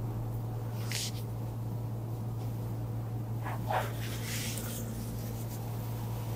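Room tone with a steady low hum, and a few brief soft handling sounds of a hands-on upper-back massage, about one second in and again around four seconds in.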